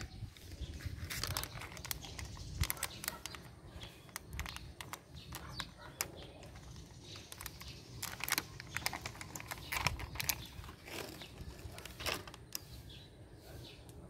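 Irregular small clicks and crackles of a pet eating, coming in uneven clusters with short pauses.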